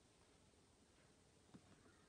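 Near silence: room tone, with one faint tap about one and a half seconds in.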